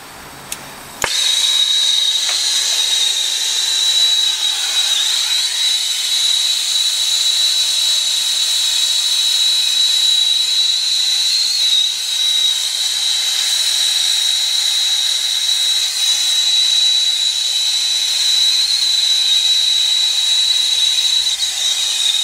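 Brazing torch lit and burning steadily on copper refrigerant line joints: a loud steady hiss with a constant high whistle, starting suddenly about a second in.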